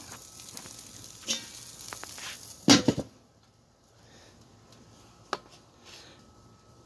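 Beef back ribs sizzling on the grate of a charcoal Weber kettle grill, then a loud metal clank about three seconds in as the kettle lid is set on, after which the sizzle is muffled and much quieter. A single short click follows a couple of seconds later as the lid's top vent damper is set.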